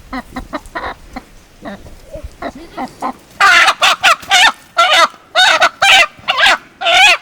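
Chicken squawking loudly, a quick run of about eight short, harsh calls starting a little past halfway, after a few seconds of faint clicks and knocks.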